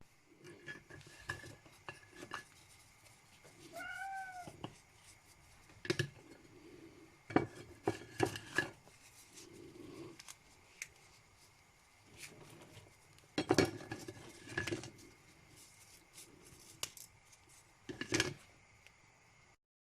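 Cutlery and crockery clinking and tapping in scattered sharp knocks, with clusters of clicks near the middle and towards the end. About four seconds in, a short cry rises and falls in pitch.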